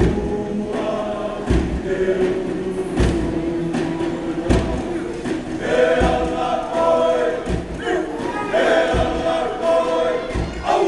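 A large group of boys singing a Tokelauan song together in chorus, over a drum beat struck about every second and a half. The singing grows fuller and higher about halfway through.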